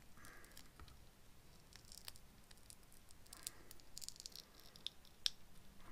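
Faint handling noise of a rubber mold being flexed and peeled apart by hand: scattered soft clicks and light crackles, with one sharper click about five seconds in.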